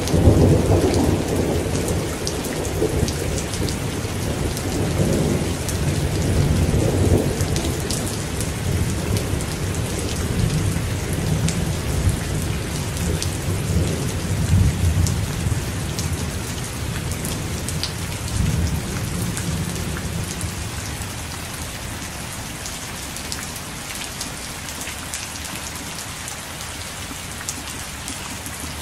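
A long roll of thunder rumbling through a thunderstorm, dying away after about twenty seconds, over steady rain with scattered sharp drop ticks.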